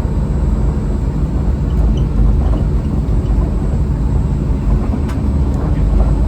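Disneyland Mark VII monorail running along its concrete beam, heard from inside the front cabin as a steady low rumble of its rubber tyres and drive. There is a light click about five seconds in.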